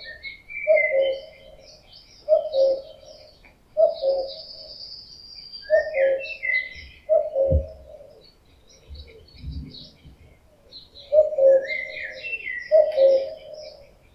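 Male common cuckoo calling its two-note "cu-coo", the second note lower. The call comes seven times, about every second and a half, with a pause of some four seconds after the fifth; this is the male's mating-season call. Small songbirds chirp and twitter higher up throughout, and there is a low thump about seven and a half seconds in.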